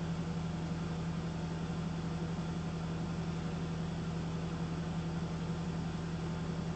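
Steady hum of a running workshop machine: a strong low tone over an even hiss, unchanging throughout.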